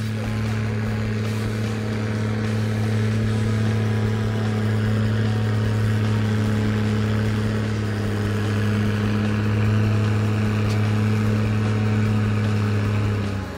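Case IH 1455 XL tractor's six-cylinder diesel engine running hard at a steady pitch, under full load as it drags a tractor-pulling weight sled; the sound cuts off suddenly near the end.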